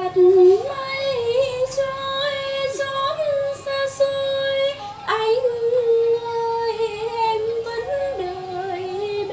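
A woman singing a slow melody in long held notes that step up and down in pitch.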